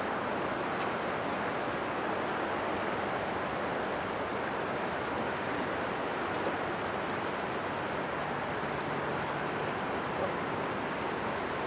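Steady rushing of river water and wind, with the low, faint drone of a passing inland cargo ship's diesel engine underneath.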